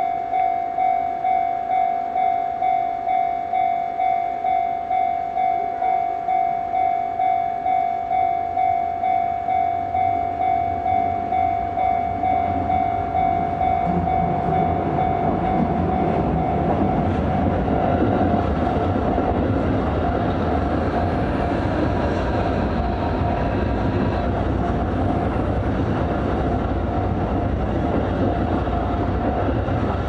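Japanese level crossing's electronic warning bell ringing in an even, repeating pattern, a little under two strokes a second. From about twelve seconds in, the rumble of an approaching Shin-Keisei 8000-series electric train grows louder and by the end covers the bell.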